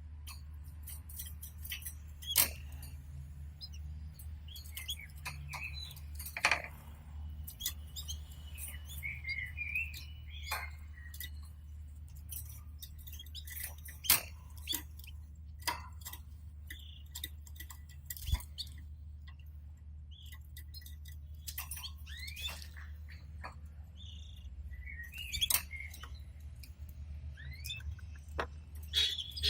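Pet canaries giving scattered short chirps and call notes among many sharp clicks and taps, over a steady low hum.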